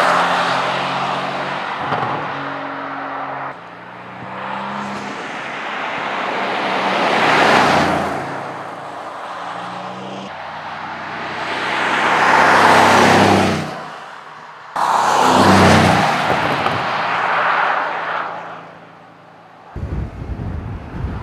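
Bentley Continental GT Speed's twin-turbo V8 (plug-in hybrid) driving by in several cut-together passes. Each pass swells as the car nears and fades as it goes, with the engine note steady in between, and the shots change abruptly.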